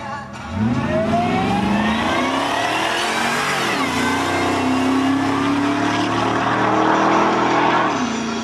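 LS1 V8 car accelerating flat out on a drag-strip pass. The engine note climbs steeply from launch and drops sharply at an upshift a little over three and a half seconds in. It then climbs again and falls near the end.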